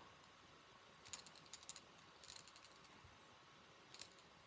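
Near silence with a few faint, scattered light clicks and ticks from fingers handling a small salmon fly and its feather materials.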